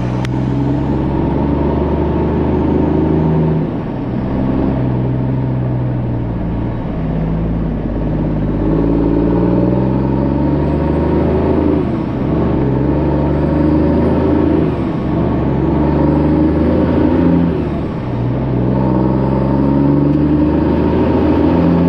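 Unmuffled diesel engine of a heavy truck, heard inside the cab with the windows down, pulling hard as the truck accelerates. Its pitch climbs through each gear and drops back at each upshift, about four times, with a faint high whine rising and falling above it.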